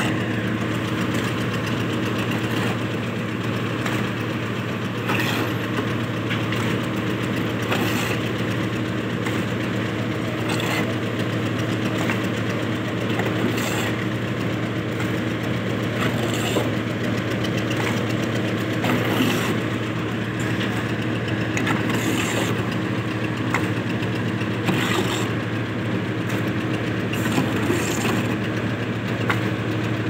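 A motor engine running steadily at an even speed throughout. Over it come occasional short scrapes and knocks as wet concrete is worked out of a steel wheelbarrow.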